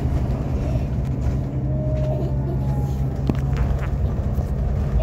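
Steady engine drone and road noise heard inside the cabin of a moving bus, with a few faint clicks or rattles a little past halfway.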